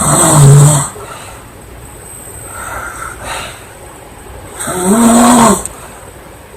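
A woman snoring loudly: two long snores with a clear droning pitch, one at the start and one about five seconds in, with a softer breath between.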